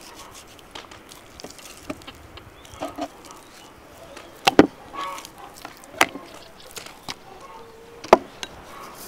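Food-prep knocks from a kitchen knife on a wooden cutting board and raw pork being handled into an enamel bowl: a handful of sharp, separate knocks, the loudest a close pair about halfway through.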